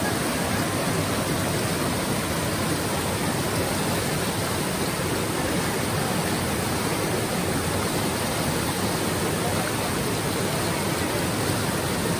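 Swollen river rushing over rocks and rapids: a steady, unbroken rush of water.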